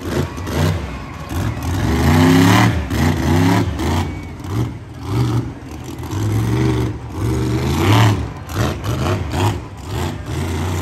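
Monster truck engine revving hard again and again, its pitch sweeping up and dropping back every second or two as the truck drives across a dirt arena.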